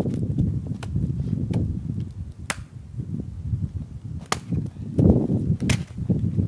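A dead wooden branch jabbed repeatedly into packed snow and frozen ground: dull thuds with sharp wooden knocks and cracks every second or two, the heaviest thud about five seconds in.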